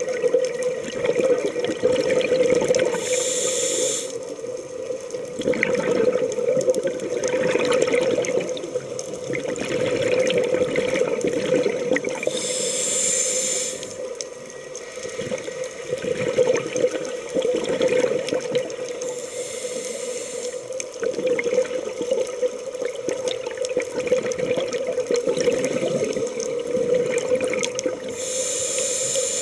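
Scuba diver breathing through a regulator underwater: four hissing inhalations about eight seconds apart, with bubbling exhalations between them, over a steady hum.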